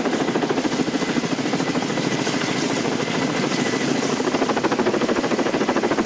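Coaxial-rotor firefighting helicopter flying overhead, its rotors beating in a rapid, steady chop.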